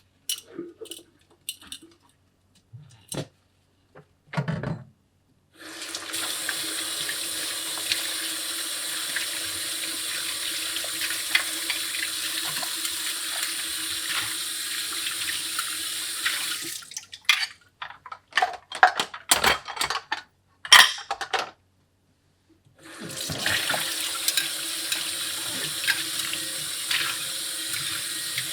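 A water tap running into a sink, turned on about five seconds in, off again after about ten seconds, then on again near the end. Between the runs come sharp knocks and clatter.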